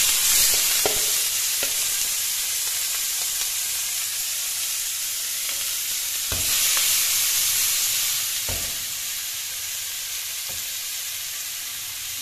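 Whole shrimp poured into hot oil in a frying pan, sizzling loudly the moment they land. They are stirred in the pan, with a few knocks against it, and the sizzle swells again about six seconds in, then eases a little toward the end.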